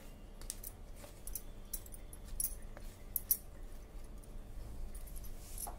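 A few faint light clicks and scrapes as grated beetroot is scraped off a plate into a glass bowl of mashed potato.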